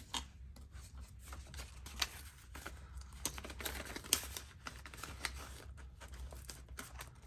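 Paper banknotes rustling and a cash binder's plastic sleeves crinkling as bills are slid into a sleeve and the sleeves are flipped: light, irregular rustles and ticks with a few sharper clicks.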